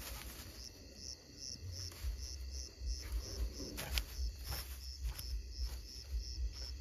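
Cricket chirping steadily, about three high chirps a second, over an uneven low rumble, with a few brief rustles or snaps in the grass.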